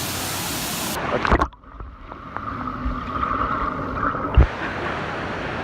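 Wave pool water washing and splashing, then about a second in the sound plunges underwater: everything goes dull and muffled, with a steady underwater drone. About four seconds in it breaks the surface with a splash, and the open-air rush of water returns.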